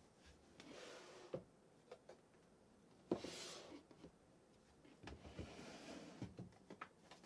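Drawers of a chest of drawers being handled and pulled open: soft sliding rasps broken by a few sharp knocks, the loudest about three seconds in.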